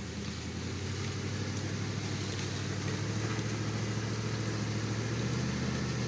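Dodge Dakota pickup's engine running steadily at low revs as the truck crawls over rocks, getting a little louder toward the end.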